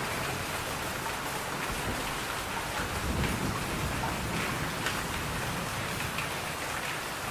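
Steady rain falling on surfaces, with scattered sharp drop ticks and a low thunder rumble that swells about three seconds in.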